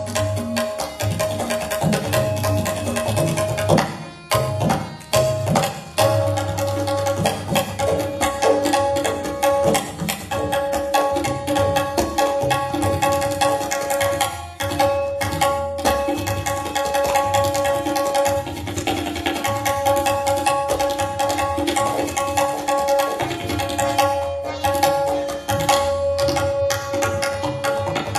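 Tabla played by two players together, a fast dense run of strokes: the ringing pitched tone of the small right-hand drums over the low boom of the bass drums, with a brief thinning of the strokes about four seconds in.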